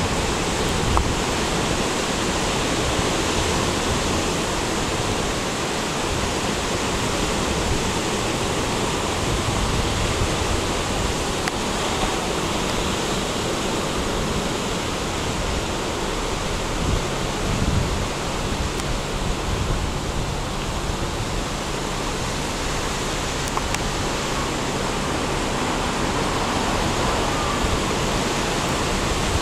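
Ocean surf breaking and washing onto the beach: a steady rushing noise that swells and eases only slightly.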